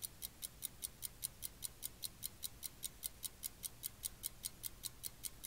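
Fast, even clock-like ticking, about five sharp high ticks a second.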